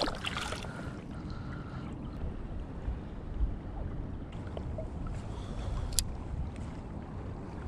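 Wind rumbling on the microphone over small waves lapping at the bank. A brief splash at the start as a small sea bass is let go in the water, and a single sharp click about six seconds in.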